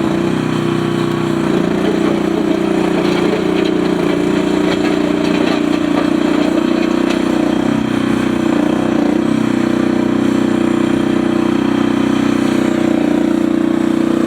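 Mini skid steer's engine running steadily, with small shifts in pitch a couple of times.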